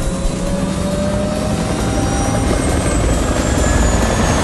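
Helicopter turbine and rotor running steadily, with a thin whine that slowly rises in pitch during the first couple of seconds.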